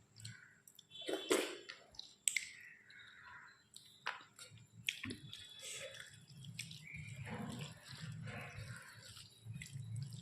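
Close-up eating sounds of a person eating a meal of rice and dal: wet mouth clicks and smacks scattered through, with steadier chewing from about six seconds in.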